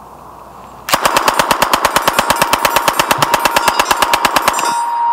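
MAT-49 submachine gun firing one long full-auto burst of about three and a half seconds, at a slow, even rate of about seven or eight shots a second. Once the burst stops, a steady ringing tone lingers.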